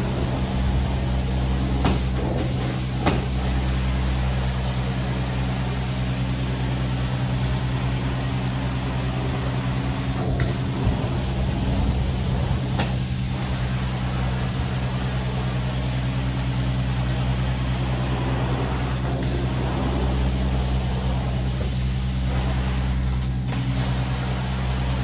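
Carpet-cleaning extraction machine running steadily: a constant low machine hum under the rushing hiss of suction as the extraction wand is drawn over the wet carpet, with a few brief clicks.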